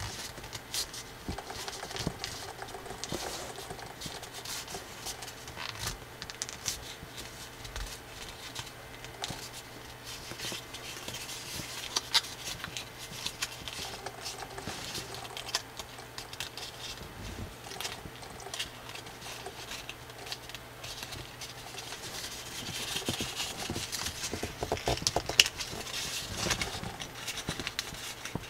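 Slightly thick coloured drawing paper being folded and pressed by hand: irregular rustling, crinkling and small crackling snaps as creases are pinched into shape. The sound grows busier and louder near the end.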